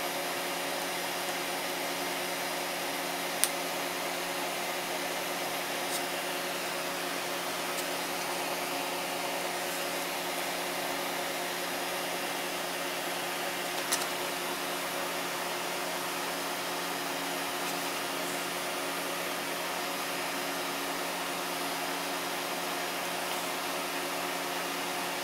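Steady whirring machine hum with several held tones, like a fan or blower, with two faint clicks about three and a half and fourteen seconds in.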